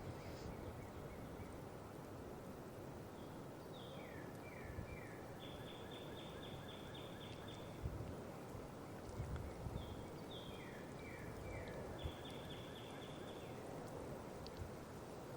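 A small songbird sings twice outdoors. Each song is a few quick downslurred notes followed by a longer trill, about four seconds long, the first about three seconds in and the second about ten seconds in.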